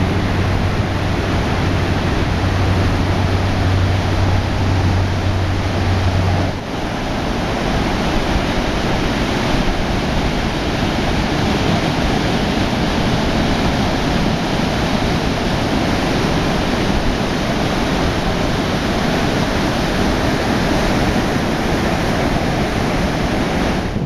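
Heavy storm surf breaking, a steady rushing wash of waves. For the first six seconds or so a steady low drone from a helicopter flying overhead runs under the surf, then stops abruptly.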